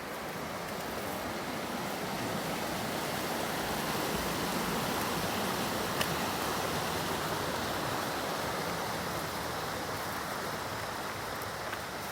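Small mountain stream running, a steady rush of water that swells a little in the middle and eases near the end.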